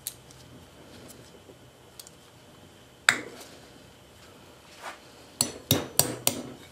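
Sharp metal clinks of needle-nose locking pliers working at an old seal inside a hydraulic floor jack: a loud clink about three seconds in, then four quick clicks near the end.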